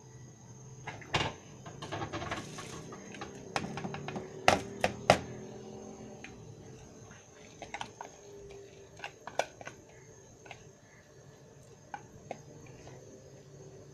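Dry rice poured from a plastic bowl into a pot of boiling stock: a short rushing patter of grains, then several sharp knocks of the bowl against the metal pot a little after halfway, followed by scattered lighter clicks.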